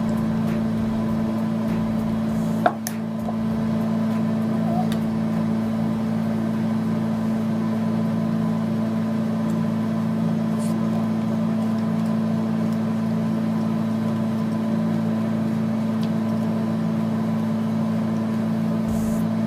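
A steady mechanical hum, with one sharp click a little under three seconds in.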